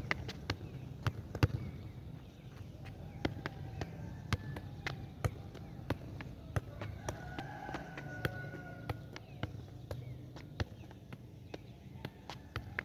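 Outdoor rural ambience: irregular sharp clicks and knocks throughout over a low steady rumble, with a faint drawn-out animal call, a rooster-like crow, about halfway through.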